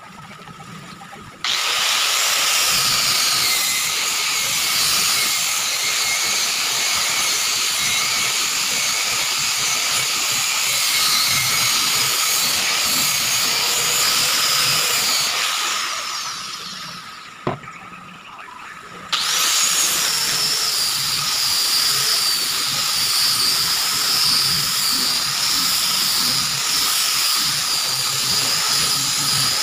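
Electric round-pad sander running while sanding a wooden cabinet door frame, a steady high whine with the pad scrubbing the wood. It starts about a second and a half in, winds down around the middle, a single click follows, and a sander starts again a couple of seconds later and runs on.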